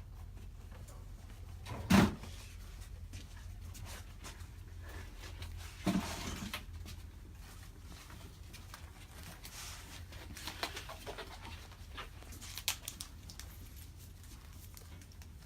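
Handling noises in a small room: a sharp knock about two seconds in, another knock with a brief rustle around six seconds, then scattered light clicks and rustles, over a steady low hum.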